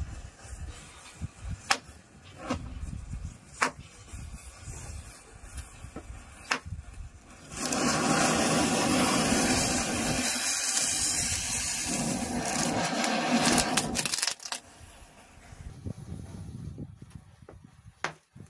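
Burning matchstick chain fizzing and crackling, with sharp pops as match heads flare. About seven and a half seconds in, a ground firework lights and sprays sparks with a loud, steady hiss for about six seconds. After that the fizzing matches return, with a couple of pops near the end.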